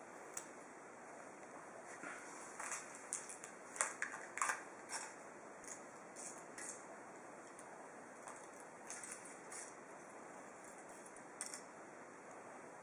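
Thin foil wrapper of a Kinder Surprise chocolate egg crinkling in short, irregular crackles as small fingers peel it off, busiest a few seconds in, over a faint steady hiss.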